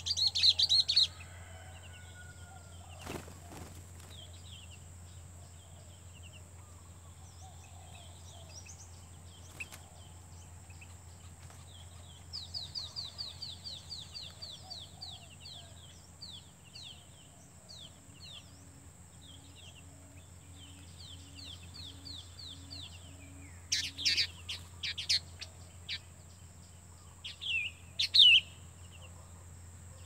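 Small birds chirping in loud bursts at the start and twice near the end, with a fast twittering trill in the middle. After the trill comes a low, evenly repeated hoot about twice a second for several seconds, the call of a greater coucal played from the lure loudspeaker.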